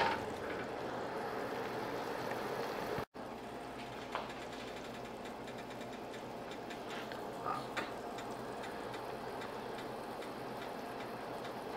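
Tomato broth boiling in a stainless steel stockpot: a steady bubbling crackle, with a few faint pops.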